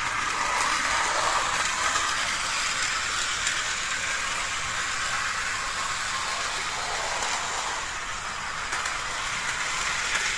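Bachmann HO-scale 0-6-0 model steam locomotive running in reverse on plastic-roadbed track: a steady whirring hiss from its motor, gearing and wheels rolling on the rails.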